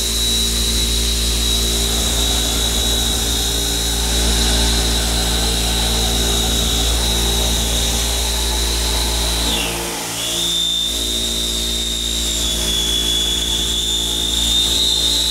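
CNC milling machine full-slotting metal with an end mill: a steady, high-pitched cutting whine over the machine's low hum. The whine drops away briefly about ten seconds in and then picks up again.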